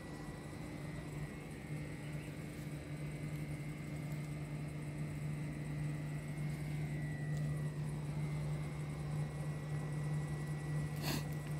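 A steady low machine hum, like an engine or motor running at a constant speed, with a faint high-pitched tone above it. A single short click sounds near the end.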